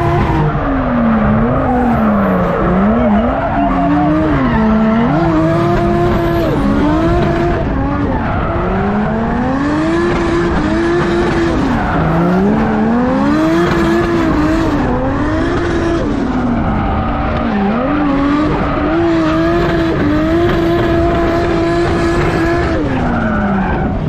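Drift cars sliding on a track: engines revving hard, the pitch climbing, holding high and dropping back again many times, with tyres squealing.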